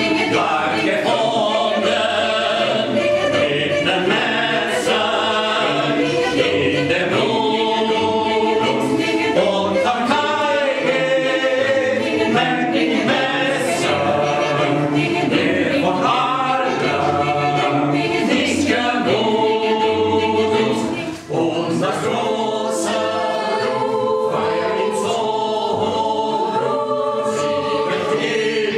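A choir singing a cappella, several voices in harmony, with a brief break between phrases about three-quarters of the way through.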